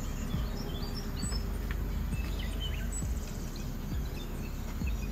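Outdoor ambience: small birds chirping in short scattered calls over a steady low rumble.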